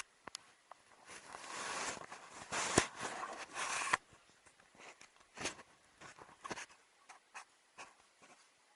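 Scraping for about three seconds with a sharp knock in the middle, then a string of light clicks and knocks.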